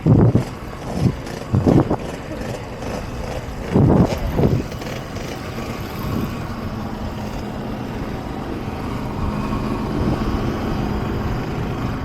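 Motor vehicle engine running steadily with a low hum, with several loud thumps in the first five seconds.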